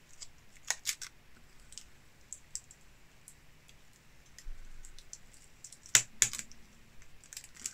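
Scattered light clicks and taps of black aluminium maker-slide extrusion rails being handled and lifted out of foam packaging, with two sharper knocks about six seconds in.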